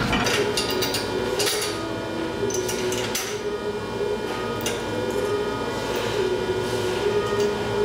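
Scattered metallic clinks and knocks of steel tools and socket head cap screws against the press's bronze L-jib and steel slide as the jib is refitted by hand, over a steady hum.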